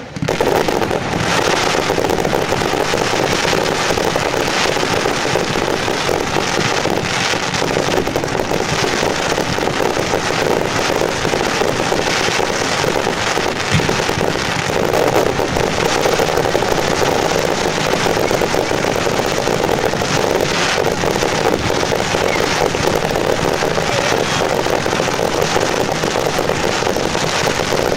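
Fireworks display: a continuous dense barrage of crackling and bangs that merges into one steady noise.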